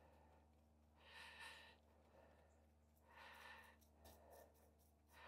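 Near silence, with faint, soft breaths about one every two seconds.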